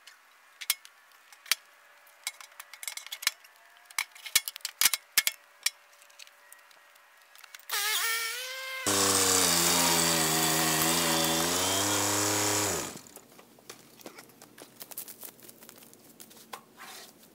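Scattered light knocks and clicks, then about eight seconds in an engine starts with a rising pitch and runs steadily and loudly for about four seconds before it stops, leaving more faint knocks.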